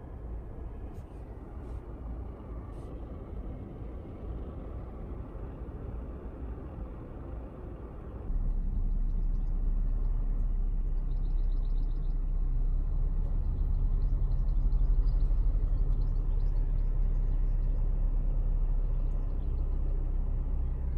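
Steady low rumble of a car driving, then an abrupt switch about eight seconds in to a louder, steady low engine hum from the tour boat.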